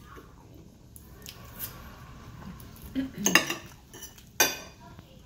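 Steel knife and fork clinking and scraping against a plate while cutting food: a cluster of clinks about three seconds in and one sharp clink near the end.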